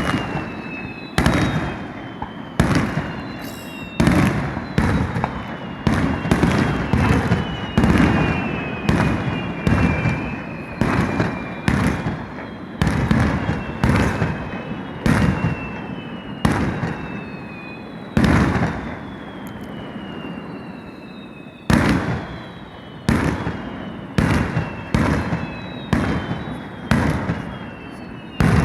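Aerial firework shells bursting in rapid succession, each bang followed by a rumbling tail. Several high whistling tones slowly fall in pitch over them. There is a short lull about three quarters of the way through before the bursts resume.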